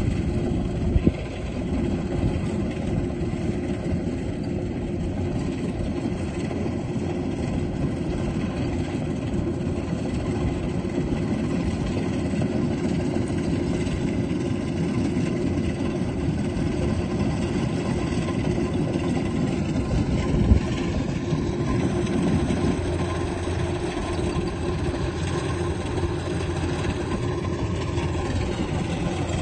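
Kubota combine harvester's diesel engine running steadily, with a brief knock about a second in and a sharper one about 20 seconds in.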